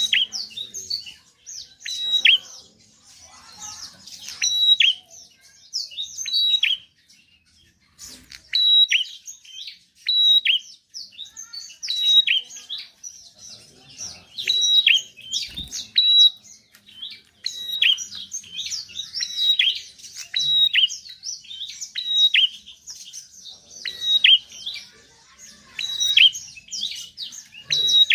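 Prinias (prenjak) singing busily: rapid repeated high chirps and short downward-sweeping notes in quick phrases, with a brief pause about seven seconds in.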